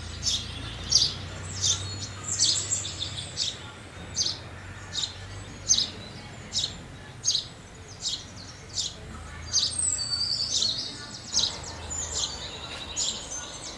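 House sparrows chirping: a run of short, repeated chirps, about one or two a second, with several birds chirping over one another near the end. A faint low hum runs underneath.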